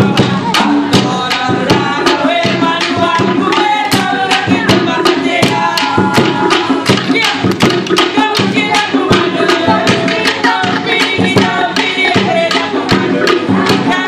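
Cook Islands drumming: a group of drums beaten in a fast, steady, driving rhythm for dancing, with voices over the beat.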